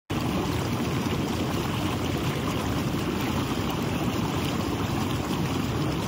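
Hot tub jets running: a steady rush of bubbling water.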